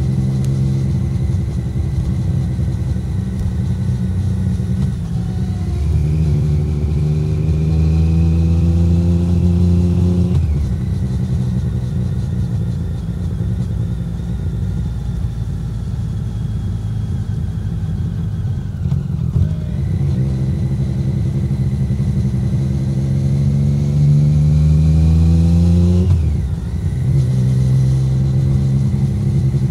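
Triumph Street Triple 765R's three-cylinder engine through an SC Project SC1-R titanium exhaust, with no wind noise. It rises in pitch twice under throttle, each rise ending in a sudden drop, with steady running in between.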